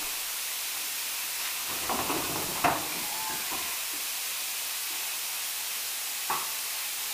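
Spirit box sweeping through radio static: a steady hiss, broken about two to three seconds in by a short garbled fragment that the investigators take for a spirit's voice, with a sharp tap about six seconds in.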